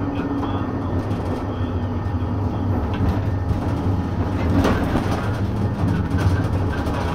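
Tram running along its track, heard from inside the front cab: a steady low hum and rumble from the motors and wheels, with a few sharp clicks as the wheels pass over the rails.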